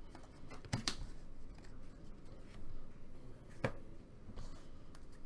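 Glossy trading cards handled by hand: cards sliding and flicking against one another as a stack is flipped through, with a few sharp clicks, two close together about a second in and another a little past the middle.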